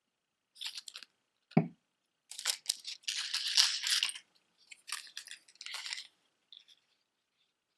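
Costume jewelry earrings being handled: light clinks and crackly rustling in several bursts, with one dull thump about a second and a half in, the loudest sound.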